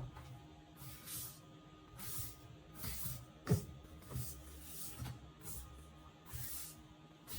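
Background music with short hissing, snare-like hits about once a second over a low bass.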